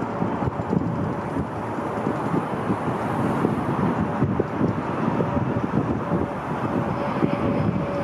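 Jet airliner engines rumbling, with a steady whine that grows stronger in the last few seconds as the aircraft draws nearer.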